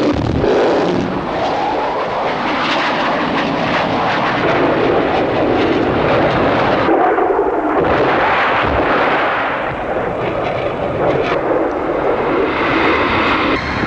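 Military jet aircraft flying past, their jet engines making a loud, continuous noise that swells and fades, with a brief dip about seven seconds in.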